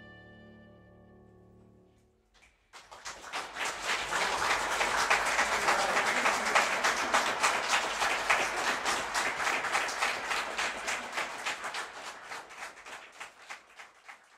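The last held chord of a violin and piano dies away. After a short pause, an audience starts applauding; the clapping builds quickly, holds for several seconds, then thins out and fades near the end.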